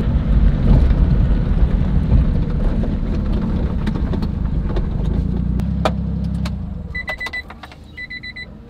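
1996 Honda Acty mini truck's three-cylinder engine with a race exhaust, heard from inside the cab as the truck drives over gravel; the engine sound drops away about seven seconds in. Then a high electronic beep sounds about once a second, each beep about half a second long.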